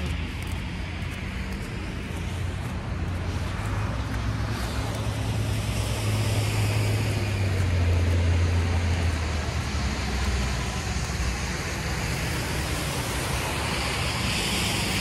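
Road traffic on a wet, slushy city street: passing vehicles with a low rumble that swells about halfway through and then eases, over a steady hiss of tyres on the wet road.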